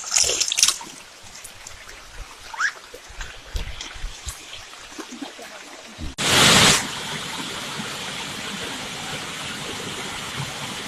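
Stream water splashing for about a second, then a faint trickle with small clicks. At about six seconds a brief loud rush cuts in, and the steady rushing of a waterfall follows.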